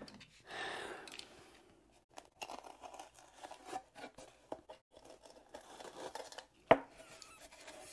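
A carpet knife scraping and shaving burrs from the edge of a freshly drilled hole: a run of small scratchy cuts and clicks, with one sharp click the loudest near the end.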